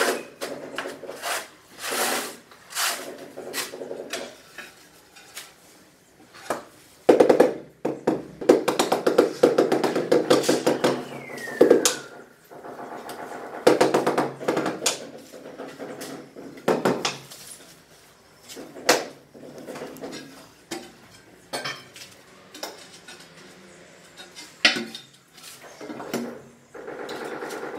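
Floor-tiling work: irregular scraping, clinking and knocking of hand tools in mortar and against ceramic tiles, with denser bouts of scraping and a tile being handled and set down near the end.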